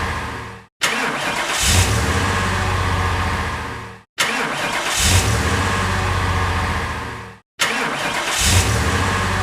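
Car engine start sound effect played three times in a row: each time the engine catches with a short surge, settles into steady running, then fades out and cuts off.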